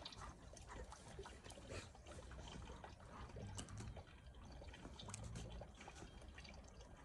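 Near silence: faint scattered ticks and crackles over a low rumble.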